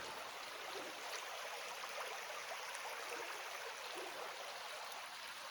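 Creek water running and trickling steadily, an even rushing hiss.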